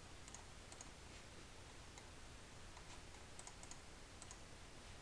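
Faint, scattered clicks of a computer mouse and keys over a low steady hiss and hum.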